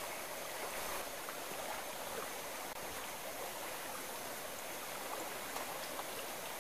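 MSR Whisperlite liquid-fuel camp stove burning at full flame under a kettle of water, a steady hiss.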